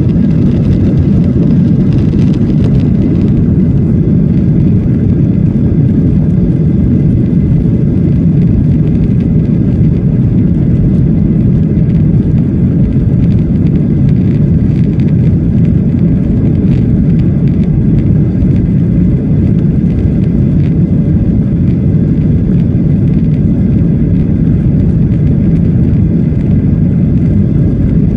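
Cabin noise in a Boeing 737 on its takeoff roll: its CFM56 jet engines running at high thrust together with the rumble of the wheels on the runway, a loud, steady low rumble.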